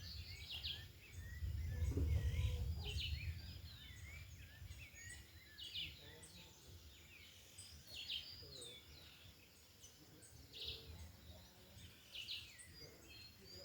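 Wild birds chirping and calling, many short quick notes throughout. Wind buffets the microphone with a low rumble from about a second in, easing after about four seconds.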